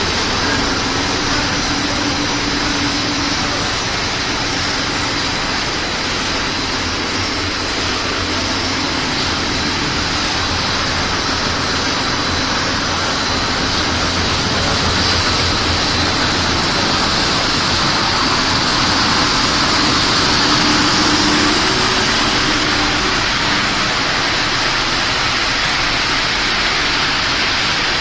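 Snack-food extrusion production line running: a steady, loud blend of electric-motor hum and machine noise with a faint high whine.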